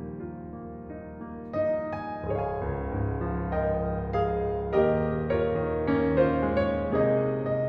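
Soft background piano music, a melody of sustained notes that grows busier about a second and a half in.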